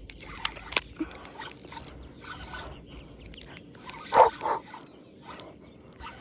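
Clicks, rustles and scrapes of fishing rod, reel and line handling as an angler fights a large bass, with a sharp click under a second in and two short, louder sounds a little past four seconds in.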